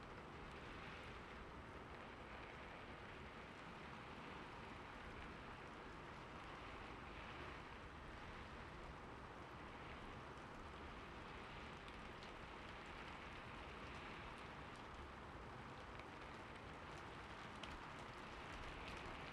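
Light rain falling steadily, a soft even hiss with scattered fine drop ticks.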